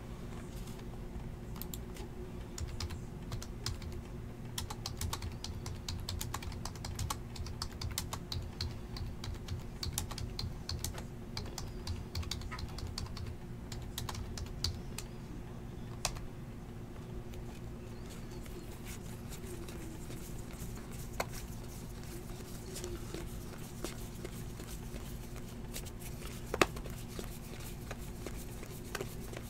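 Typing on a computer keyboard: a quick run of key clicks over the first half, sparser later, with one sharper click near the end. A steady low hum runs underneath.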